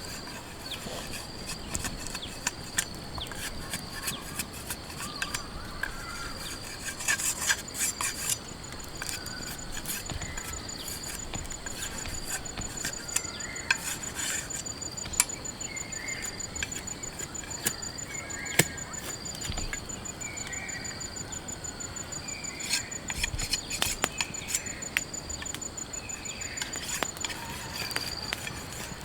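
Insects trilling steadily, with a fast, even, high pulsing that starts about a third of the way in and stops near the end, over scattered sharp clicks and taps and short squeaky chirps.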